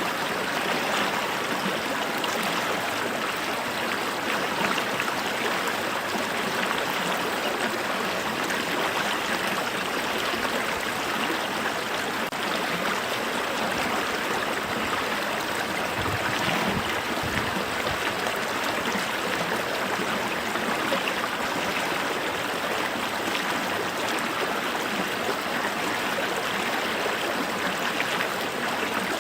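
Stream water flowing, a steady, even rush and babble with no pauses.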